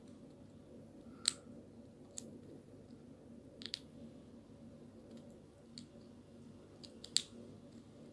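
Sharp crinkles and clicks from a small foil-and-plastic sachet being bitten and pulled at by hand, about half a dozen scattered through, with a steady low hum behind.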